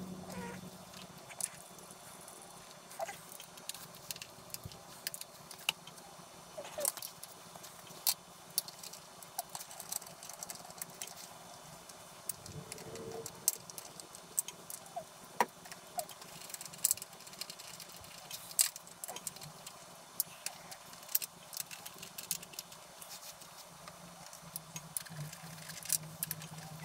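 Irregular light clicks and taps, scattered through the whole stretch, over a faint steady hum.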